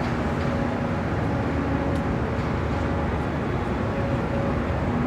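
Steady, loud street noise of traffic and machinery, with an engine-like hum that comes and goes and a few faint clicks.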